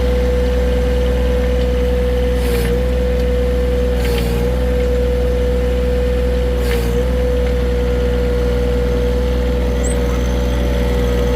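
John Deere 1023E compact tractor running steadily, its three-cylinder diesel engine humming under a constant high whine. The whine dips briefly three times, each time with a short rush of noise.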